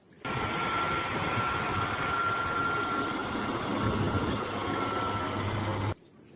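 Truck engine running steadily at an even pitch, with a thin steady whine over it. It starts sharply just after the start and cuts off abruptly about six seconds in.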